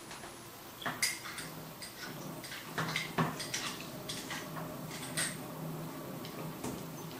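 A spoon and glass clinking at a water cooler's tap, with several sharp clinks over a low, steady hum.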